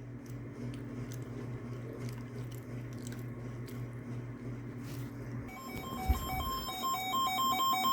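A weather radio receiver gives a steady low hum. About five and a half seconds in, the rapid warbling digital tones of an Emergency Alert System SAME header start up, announcing a new warning broadcast.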